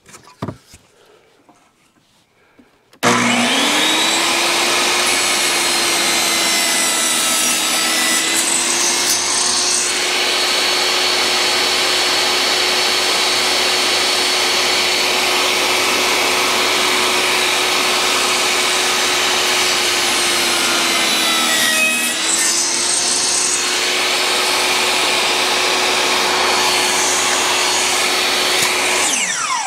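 DeWalt jobsite table saw switched on about three seconds in and running at full speed, its tilted blade making a bevel test cut through a wooden strip. The motor's pitch sags briefly as the wood is fed, most clearly about twenty-two seconds in. Near the end the saw is switched off and winds down with a falling pitch.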